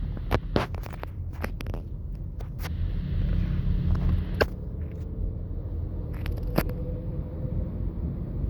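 Steady low road and engine noise inside a moving car's cabin, with scattered sharp clicks and taps and a light hiss swelling a few seconds in.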